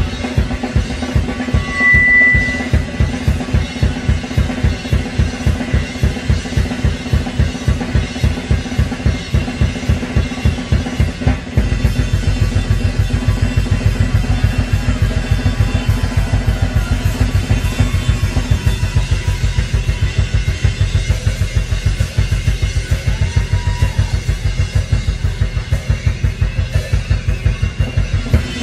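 Live drum kit solo: a fast, steady run of bass drum strokes with snare and cymbals. The low drumming thickens into a denser, almost continuous pounding about twelve seconds in.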